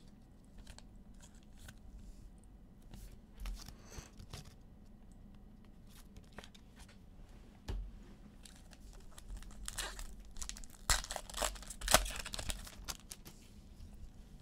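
Trading-card pack wrapper being torn open and crinkled, with cards handled in between; the loudest tearing and crinkling comes between about ten and twelve seconds in.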